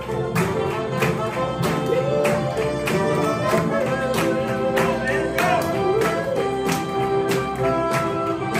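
A vocal group singing an upbeat song over amplified music with a steady beat, with hand claps along the beat.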